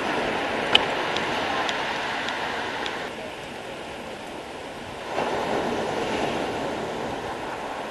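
Sea waves breaking and washing over a pebble beach: one surge of surf eases off over the first three seconds, and a second wave crashes about five seconds in. A few sharp clicks sound in the first three seconds, the loudest about a second in.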